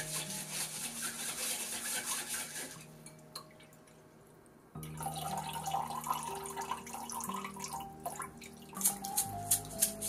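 A utensil rubbing and scraping powder through a fine mesh sieve into a glass bowl for about three seconds. After a short pause, a thin stream of liquid pours and trickles into the bowl, with a few light clinks near the end.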